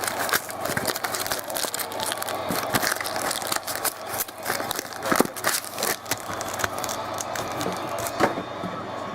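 Packaging being handled and opened: dense, irregular crinkling and tearing of wrappers, thinning out near the end.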